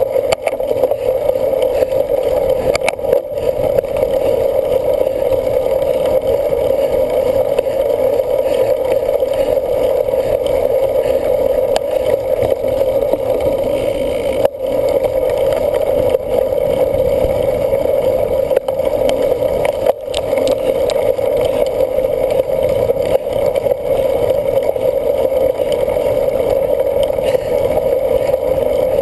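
Steady rushing noise of a bicycle ridden in a cyclocross race, wind and tyres on the course, with a few brief clicks.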